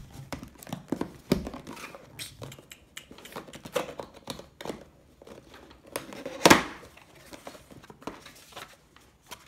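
Cardboard camera box being handled and opened: a run of short scrapes, taps and crinkles of the box and its paper sleeve, with one louder, longer scrape about six and a half seconds in as the sleeve slides off.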